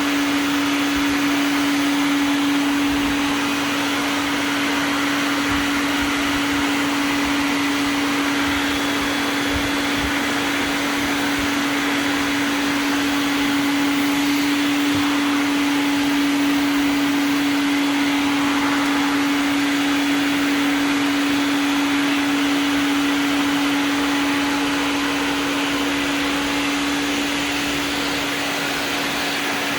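Vacuum cleaner running steadily: a constant hum over a rushing hiss of air.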